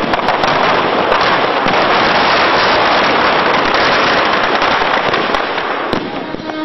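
Firecrackers packed inside a burning Dussehra effigy going off in a dense, continuous crackle. Sharp bangs stand out near the start and twice more about five and six seconds in.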